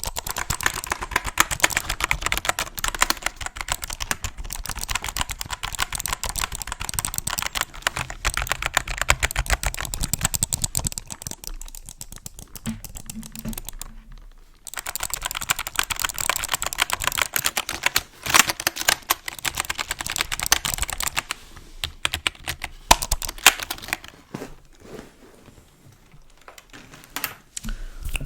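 Fast typing on a computer keyboard, close to the microphone. There is a break of about two seconds near the middle, and the keystrokes thin out to scattered clicks near the end.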